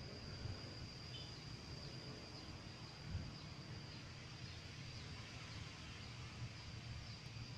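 Faint outdoor ambience: a steady high-pitched insect drone over a low, even rumble, with one small bump about three seconds in.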